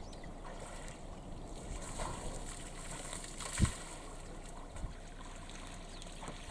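Water sloshing and trickling as an African bush elephant bull wades and stirs a muddy waterhole, over a steady low rumble. A single thump stands out about three and a half seconds in.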